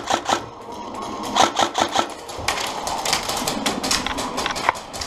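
Airsoft rifle firing rapid strings of shots, several clicks a second. There is a short pause at the start, then it fires again from about one and a half seconds in until near the end.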